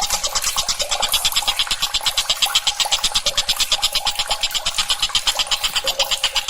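Tengkek buto kingfisher calling in a rapid, steady chattering trill of about ten short high notes a second.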